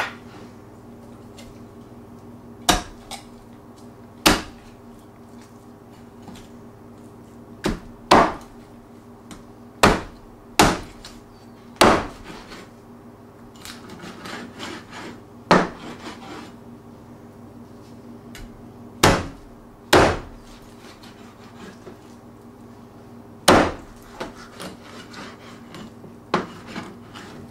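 Meat cleaver chopping a raw chicken on a cutting board: about a dozen sharp, separate chops at irregular intervals, with quieter handling of the meat between them, over a low steady hum.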